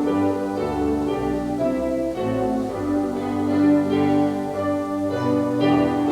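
Music: sustained instrumental chords that change every second or so, loud and even throughout.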